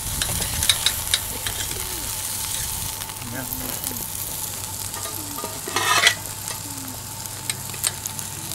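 Whole bream and crucian carp sizzling on a heavy iron grill grate over charcoal embers, with a run of short clicks and scrapes from metal spatulas on the grate as the fish are turned and lifted. One brief louder scrape or knock comes about six seconds in.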